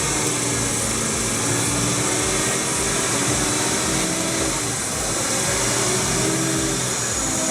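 Heavy logging machine's diesel engine running steadily under load, its pitch shifting a little as it works.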